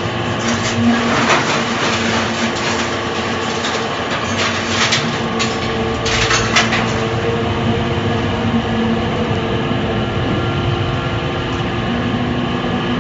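Y81F-4000 hydraulic scrap metal baler running: a steady machine hum from its motor and pump, with metal scraps clanking several times in the first half.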